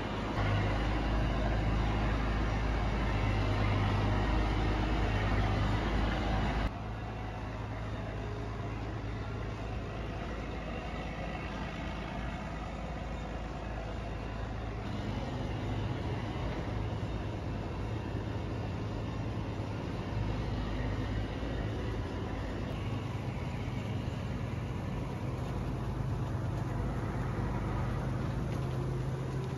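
Massey Ferguson 860 combine's engine running steadily as the machine is backed out of its shed. The sound is louder for about the first seven seconds, then drops abruptly to a quieter, steady running.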